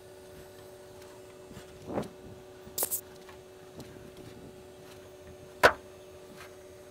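Small tube of thread locker tapping against the stainless steel nuts and bolts of an aluminum boat's floor frame: a few light clicks, a quick double click, and one sharper, louder click near the end, over a faint steady hum.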